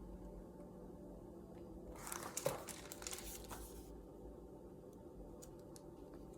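Faint rustle of paper as a picture book is handled, about two seconds long, with a sharp click in the middle and a few light ticks later, over a low steady room hum.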